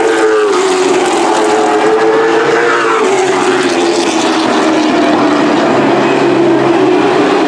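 Super Truck race engines running hard around a short oval track, a steady loud drone of several engines whose pitch sags about half a second in and again around three seconds in.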